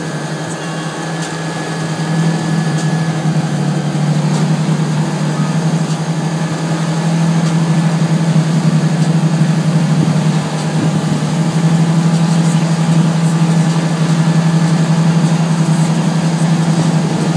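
Motorboat engine running steadily at speed while towing, over the rush of the churning wake and wind. It grows a little louder about two seconds in.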